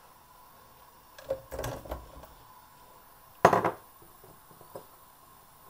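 Chopped dates tipped into a nonstick pan of melted ghee, with a few short clattering knocks from about a second in. The loudest knock comes about three and a half seconds in, followed by a couple of light clicks.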